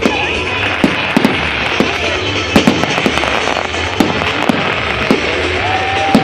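Fireworks display: many sharp bangs from exploding shells at irregular intervals, over a dense crackling hiss.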